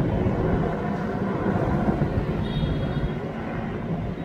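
Helicopter flying past overhead: a steady low rotor chop and turbine drone with rapid pulsing, fading slightly near the end as it moves away.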